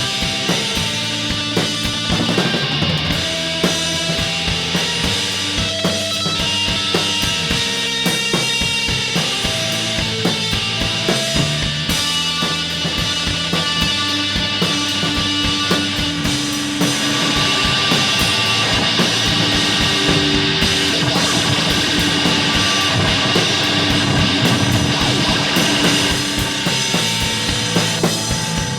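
Garage rock trio playing a loud, unbroken stretch of a song: guitar over a full drum kit with kick drum.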